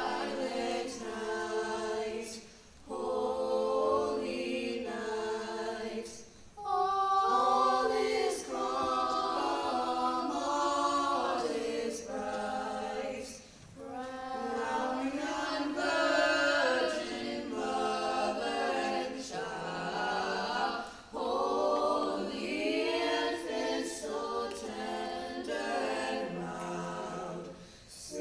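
High school choir singing a cappella, in phrases with a few short breaths between them.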